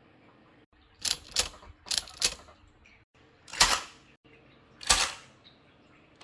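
Vintage Remington Portable manual typewriter: four sharp key strikes in two quick pairs, followed by two longer, louder mechanical strokes a little over a second apart.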